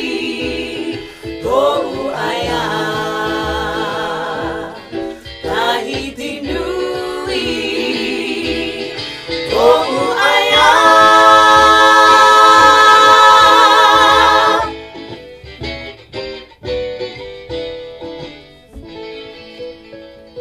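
A small vocal group of women and a man singing a song in close harmony, over a plucked guitar accompaniment. The voices swell into a long, loud held chord that cuts off about fifteen seconds in, leaving only quieter plucked guitar notes.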